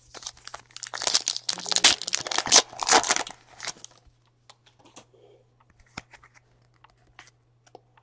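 A trading card pack wrapper torn open and crinkled, a dense crackling for about the first four seconds, then a few light clicks as the cards are handled.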